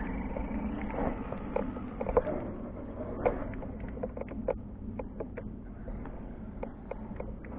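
Radio-controlled Axial SCX10 crawler truck with a Castle Creations Mamba X brushless motor driving, a steady low motor hum with many short clicks and knocks scattered through it.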